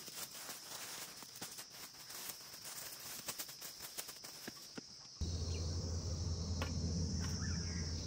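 Crickets chirring steadily, with the crackling rustle of weeds being pulled up and handled. About five seconds in the sound changes abruptly, and a steady low rumble comes in under the insects.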